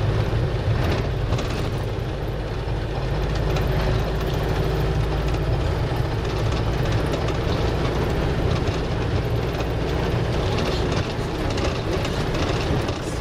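Minibus engine and tyre noise heard from inside the cabin while driving: a steady low rumble with road noise over it.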